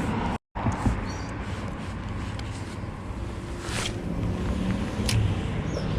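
Steady rumble of road traffic, with a split-second dropout near the start.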